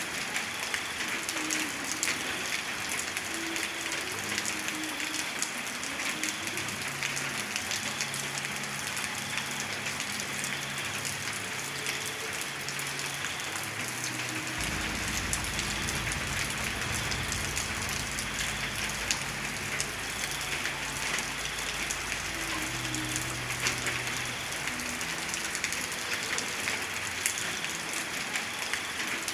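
Steady rain, heavy patter of drops on a surface. A low rumble comes in about halfway through and fades out some seconds later.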